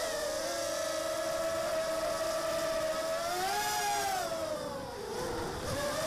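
Six small brushless motors (1306 size, 3100kv) on an Armattan Mini Hex hexacopter, whining steadily. The pitch rises briefly about three and a half seconds in, then drops sharply as the throttle falls about five seconds in, and climbs back up near the end.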